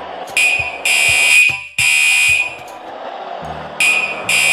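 A high, buzzing electronic beep sounds in a pattern of one short and two long beeps, starting about half a second in and starting again near the end, over background music with a steady beat.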